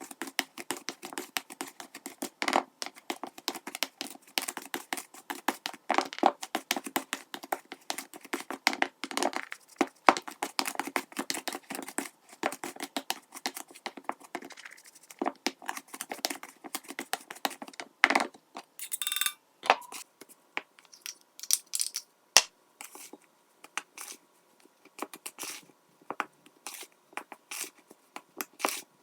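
Close-up kitchen handling sounds from making scone dough: quick scrapes, taps and crinkles of hands and utensils in a bowl, with a short hiss about 19 seconds in.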